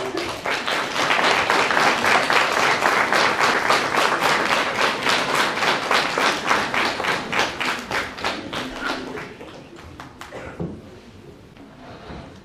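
Audience applauding, the clapping falling into a steady, even rhythm; it builds quickly at the start and dies away about ten seconds in.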